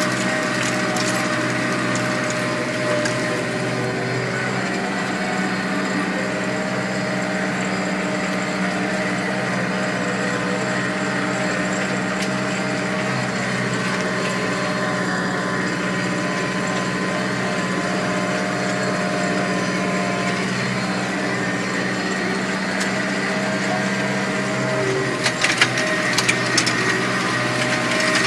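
New Holland TD85D tractor's diesel engine running steadily under load while pulling a spring-tine cultivator through soil, heard from inside the cab. A few sharp clanks sound near the end.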